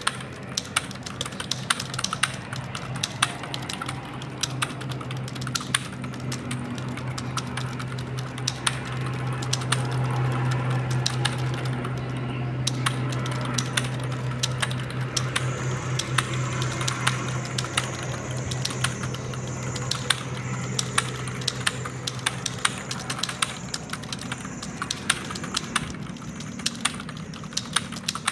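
Fast typing on a computer keyboard: a dense, uneven stream of key clicks, over a steady low hum that fades out a few seconds before the end.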